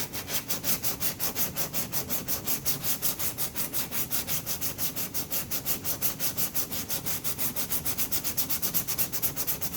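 220-grit sanding pad rubbing over cured, rock-hard marine epoxy putty, a rasping sound that pulses in quick even strokes about seven times a second.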